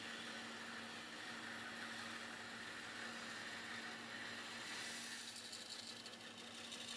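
Bandsaw running and cutting through a thick slab of figured maple, a steady motor hum with the blade's rasp through the wood. The cutting sound grows rougher and brighter about five seconds in.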